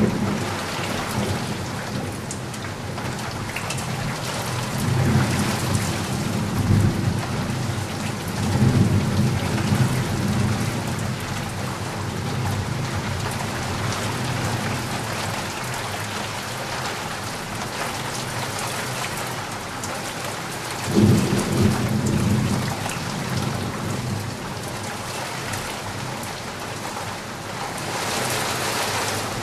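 Steady rain falling, with low thunder rumbling in about five seconds in and again about twenty-one seconds in.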